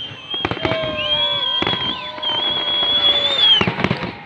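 Fireworks display: shells bursting in a run of sharp bangs and crackles, with long high whistles sounding over them and the loudest burst about three and a half seconds in.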